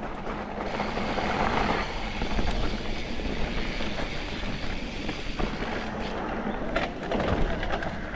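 A mountain bike riding fast down a dirt singletrack: a steady rush of tyre and rolling noise over the ground, broken by frequent knocks and rattles of the bike over bumps. The loudest patches come about two seconds in and again near the end.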